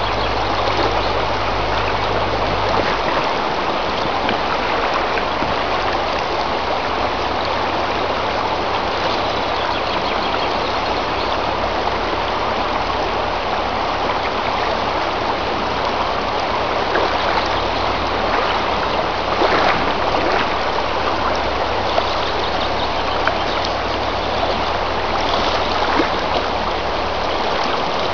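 Mountain trout river flowing, a steady loud rush of water.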